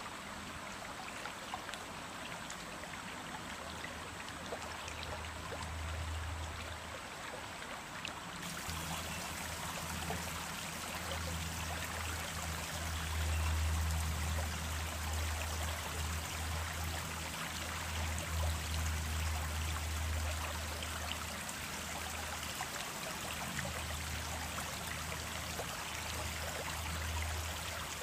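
Small stream running steadily, a continuous rush and trickle of water with a low rumble that swells and fades. The hiss gets brighter about eight seconds in.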